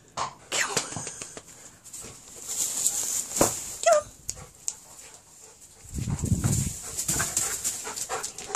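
Dry straw rustling and crackling as a weimaraner-terrier cross noses and digs through straw bales hunting rats, with a short dog whine about four seconds in. Dull low thumps follow a couple of seconds later.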